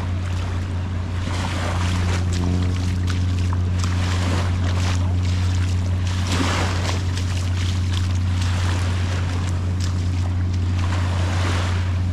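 A boat motor running steadily as a low, even hum, with small waves washing onto the sand every few seconds.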